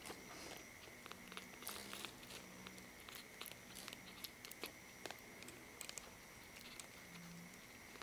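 Kitten suckling milk from a feeding syringe: faint, irregular wet clicks and smacks of its mouth on the syringe tip.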